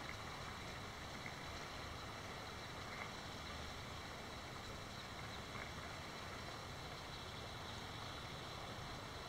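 Steady, even sound of river water running, with no distinct events.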